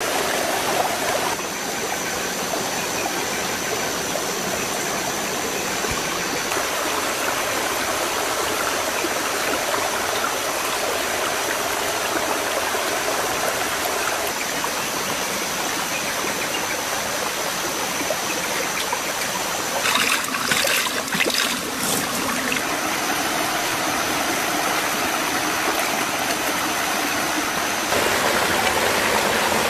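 Shallow stream running over rocks, a steady rush of water that grows louder near the end. A few sharp knocks come about twenty seconds in.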